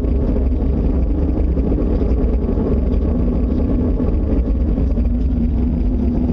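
Really loud, steady, deep rumbling roar from an unidentified distant source, which the listeners take for a possible approaching tornado.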